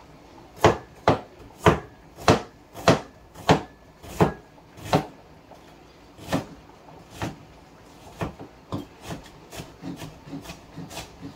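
Knife chopping on a wooden cutting board: sharp, regular strokes about every half second for the first five seconds, then sparser, with quicker, lighter taps near the end.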